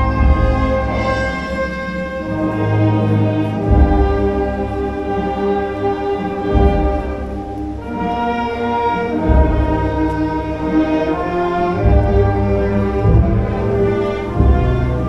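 Orchestral music with long held notes, over a deep bass that comes in and drops out every few seconds.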